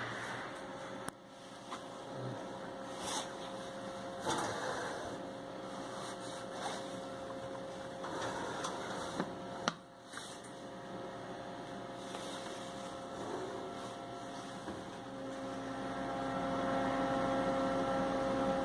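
Steady electrical hum of commercial kitchen equipment, with a pitched drone that grows louder near the end. A few light clicks and knocks, likely from handling the pans and racks.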